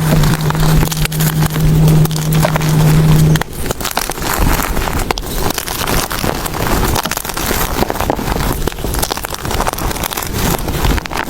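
Blocks of gym chalk being crushed and crumbled, a dense crunching and crackling. A steady low hum lies under the first few seconds and stops abruptly.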